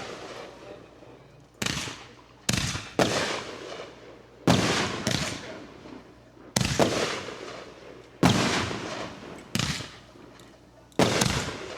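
Fireworks going off: about eight sharp, loud bangs at irregular intervals, each trailing off in a long echoing decay.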